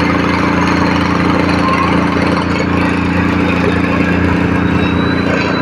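A combustion engine running steadily at an even speed, with a constant low hum and mechanical clatter.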